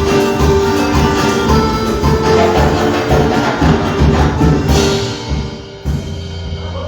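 Live worship band music with pitched instruments over a pulsing bass beat, dying away about five seconds in.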